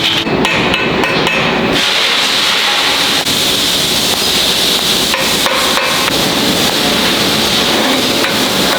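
Metalworking on a steel showcase frame during welding and sanding assembly: steady, loud workshop noise with scattered metallic knocks like hammer strikes.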